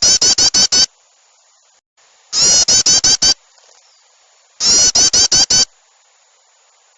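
Bird-lure recording of agitated small-bird calls: loud bursts of about six rapid, harsh notes each, repeated about every two seconds, three times.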